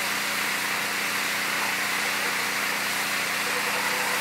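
Mantled howler monkey roaring: a steady, noisy drone that holds without a break.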